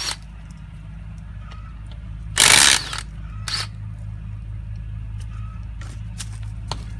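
Cordless 18-volt Ryobi impact driver hammering in a short burst of about half a second, two and a half seconds in, on a 5/8 wheel bolt, then a brief second burst about a second later, with a few light clicks of tool and metal. A steady low hum runs underneath.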